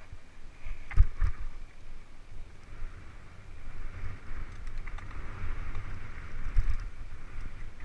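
Mountain bike riding down a dirt singletrack, heard from a rider-worn camera: wind buffeting the microphone and tyres rolling over dirt, with two hard knocks of the bike over bumps about a second in and another near the end.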